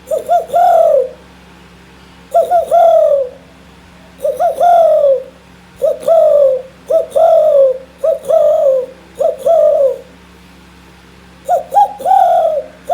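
A person imitating a dove's cooing call: eight loud coo phrases, each about a second long, with two or three short notes and then a longer note that slides down in pitch.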